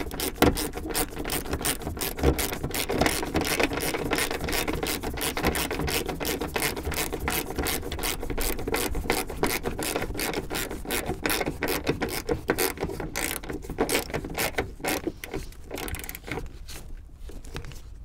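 Ratchet wrench with a 14 mm socket clicking rapidly as it runs down a seat belt's lower anchor bolt, the clicks thinning out and stopping near the end as the bolt snugs up.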